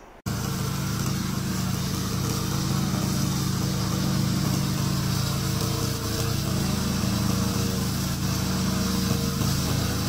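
Loncin 15 hp gasoline engine of a tracked remote-control slope mower running steadily while mowing tall grass and reeds.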